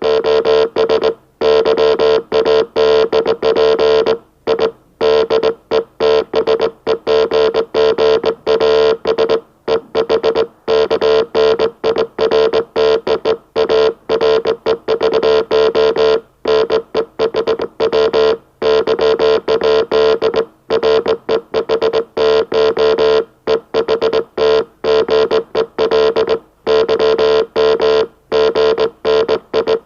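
Morse code message keyed on a low-speed oscillator: one buzzy tone at a single pitch, switched on and off in short dots and longer dashes, with brief silent gaps between characters.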